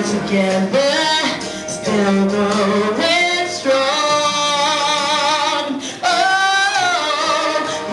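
A woman singing live into a handheld microphone, holding long notes with vibrato, over a low instrumental backing. The voice dips briefly about six seconds in, then comes back on a new held note.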